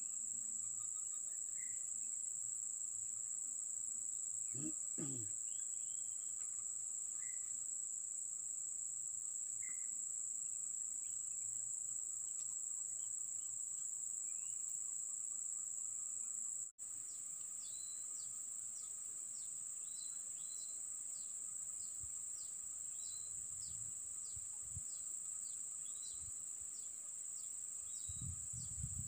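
Steady high-pitched drone of insects, with scattered short bird chirps. About halfway through the sound drops out for an instant, then a bird repeats a short call about twice a second, with a few low bumps near the end.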